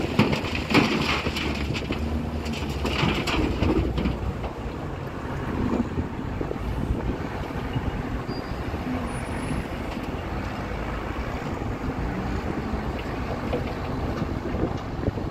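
Diesel engines of a Komatsu PC200 excavator and a Cat wheel loader running under load, with wind buffeting the microphone. A rough, crunching rush of noise in the first few seconds, as dirt is dumped into the steel bed of the dump truck.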